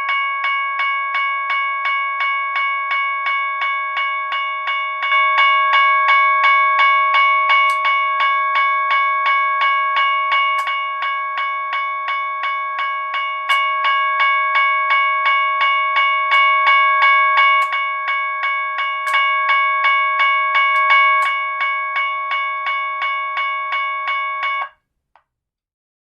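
General Signals Type 1 electronic railroad crossing bell ringing, its circuit converted to the loud tone: a synthesized gong-like strike repeating about twice a second, each stroke fading quickly. It cuts off abruptly near the end.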